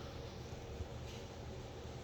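Faint, steady low hum of background room noise, with no distinct events.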